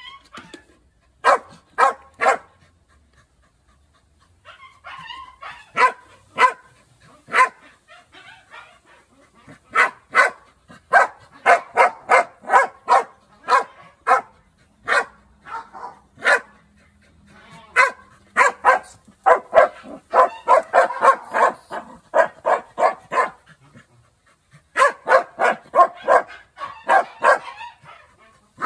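Dog barking at a rat caught in a wire cage trap, in quick runs of short barks, two or three a second, broken by a couple of brief pauses.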